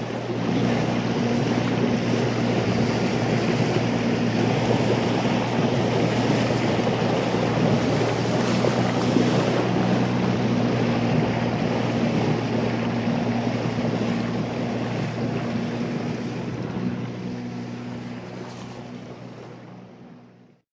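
A small boat under way: a steady motor hum under a rush of water and wind on the microphone, fading out over the last few seconds.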